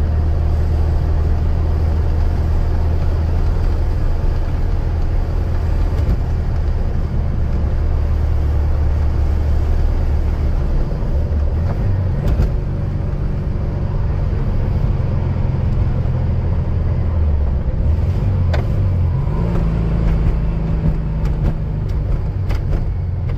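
1972 Volkswagen Beetle's air-cooled flat-four engine running steadily while driving, heard from inside the cabin. The engine note changes around the middle and again about three-quarters of the way through, as the driver works the gear lever.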